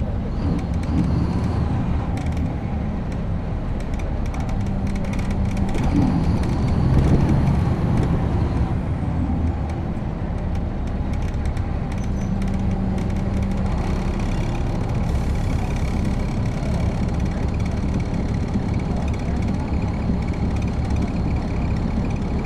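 Caterpillar C13 ACERT diesel engine of a NABI 416.15 transit bus, heard from the rear seats, running with its sound swelling louder about six to eight seconds in before settling back to a steady level.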